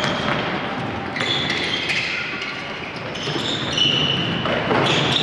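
Futsal on a wooden gym floor: players' shoes squeaking in short high squeaks several times, among the thuds of the ball being kicked and bouncing.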